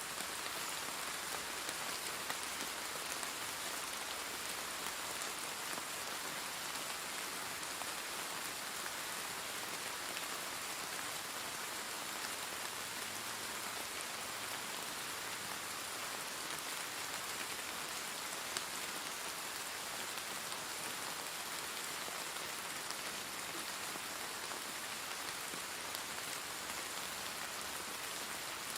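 Steady rain falling on a surface, a constant hiss of many small drops with scattered individual drop taps.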